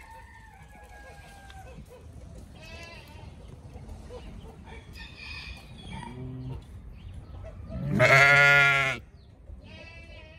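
Sheep and lambs bleating: a few scattered calls, then one loud bleat lasting about a second, about eight seconds in.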